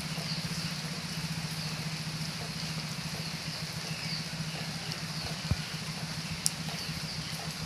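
Steady outdoor background noise: an even hiss with a steady low hum, and two faint clicks about five and a half and six and a half seconds in.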